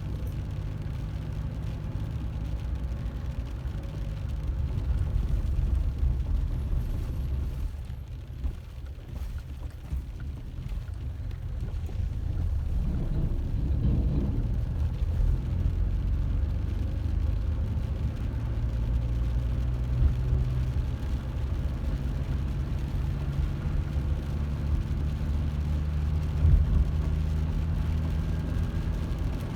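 A car's engine and road noise, a steady low rumble that eases off about eight seconds in and then picks up again.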